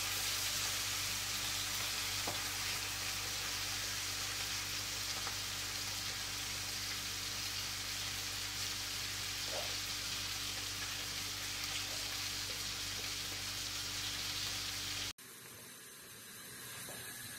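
Food sizzling in hot oil in a frying pan, a steady hiss with a few faint clicks. About two seconds before the end it cuts to a quieter sizzle of diced bacon lardons (spekjes) frying in a pan, which grows a little louder.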